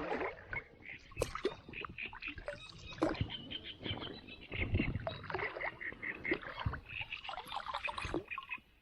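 Water sloshing and irregular knocks and clicks around a small fishing boat.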